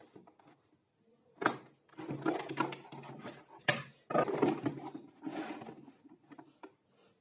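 Clatter and knocks of workshop parts being handled and fitted by hand, with two sharp knocks, about a second and a half in and again two seconds later.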